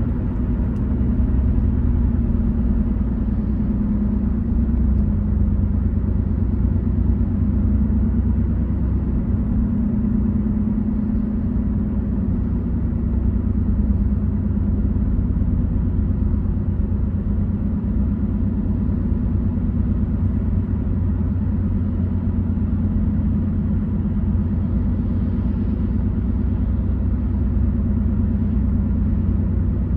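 A car driving steadily along the road, with a constant low rumble of engine and tyre noise.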